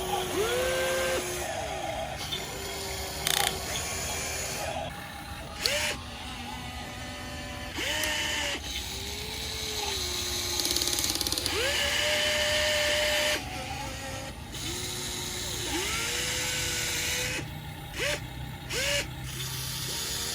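Small electric motors of a radio-controlled excavator whining in many short runs, each rising in pitch as it starts and then holding steady, with bursts of hiss in between.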